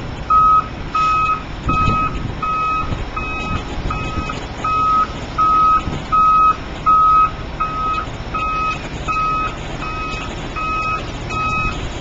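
Concrete mixer truck's reversing alarm beeping steadily at one pitch, roughly three beeps every two seconds, over the truck's diesel engine running: the truck is backing up to the concrete pump's hopper.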